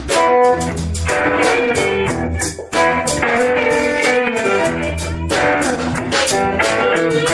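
Live country band playing: bowed fiddle over strummed guitar and electric bass, with a steady beat. The music drops away briefly about two and a half seconds in, then comes back.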